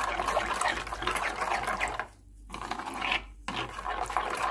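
Metal spoon stirring a thick yogurt-based marinade in a bowl: wet squelching and slopping in three bouts, with short pauses about two seconds and three and a half seconds in.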